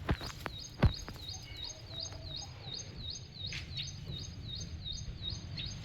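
A bird calling a steady series of short, high chirps, about three a second, over outdoor background noise. Two sharp knocks come in the first second, the second one the loudest sound.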